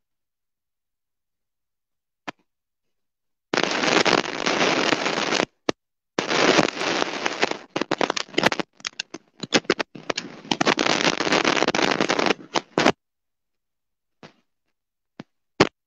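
Harsh static and crackle from a faulty earphone-microphone line on a live video call, starting a few seconds in and cutting in and out with dead silence between bursts. The mic is passing noise instead of voices.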